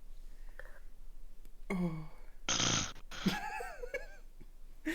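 A sleeping man snoring: a short throaty snore about two seconds in, then a louder breathy snort and some wavering throat noises a little after that.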